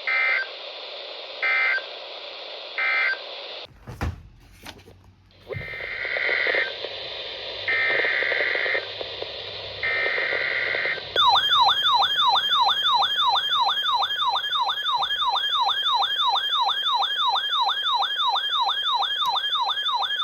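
Emergency Alert System digital data bursts: three short end-of-message bursts, a click, then three longer header bursts, followed about eleven seconds in by a loud warbling alert tone that sweeps up and down about three times a second. It marks the close of one alert and the start of the next.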